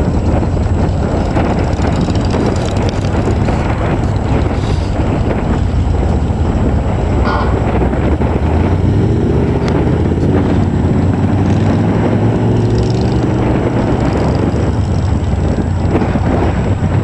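Off-road trucks' engines running and revving, with wind rumbling on the microphone. About halfway through, one engine's pitch rises and falls several times.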